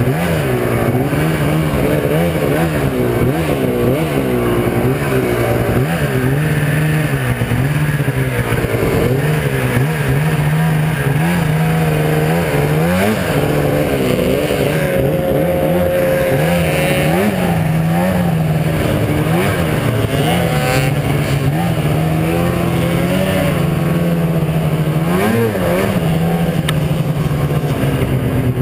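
Arctic Cat snowmobile engine running under way through snow, its pitch rising and falling over and over as the throttle is worked.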